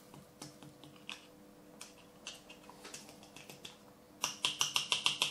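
Fingers tapping a cut-open plastic shotgun cartridge to shake the last of its powder out onto a scale: a few scattered light clicks, then from about four seconds in a fast run of taps, about eight a second.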